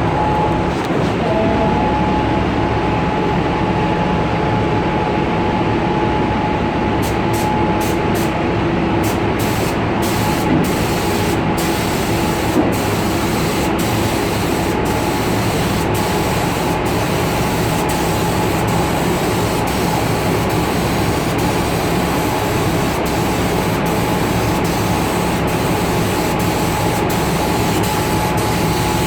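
Compressed-air paint spray gun hissing steadily as paint is sprayed, with a steady whine under the hiss.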